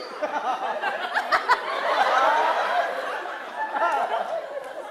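Live theatre audience laughing, mixed with voices and a couple of sharp knocks about a second and a half in.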